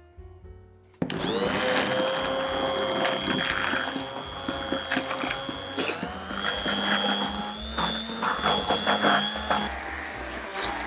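Immersion (stick) blender switched on about a second in, its motor running steadily with a whine as it churns chocolate caramel in a glass bowl. The motor note shifts about halfway through.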